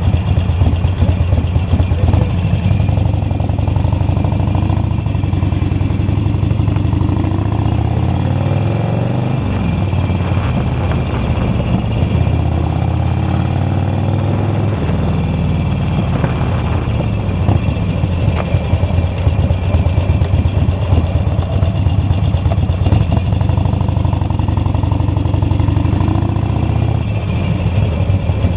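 Harley-Davidson XL1200 Nightster's air-cooled 1200 cc V-twin running loud at low street speed, its pitch rising and dropping with throttle and gear changes a few times along the way.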